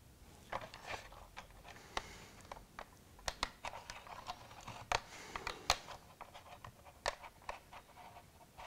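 Small, irregular clicks and taps of fingers handling a tiny magnetic vacuum-pipe coupler against the plastic body of a model railway coach while it is fiddled into place, a couple of dozen light ticks spread unevenly throughout.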